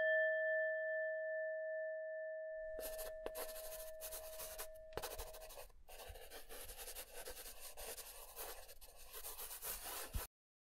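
A struck meditation bell ringing with one clear tone and higher overtones, fading away over about five seconds. From about three seconds in, scratchy rustling and rubbing with small clicks, which stops abruptly near the end.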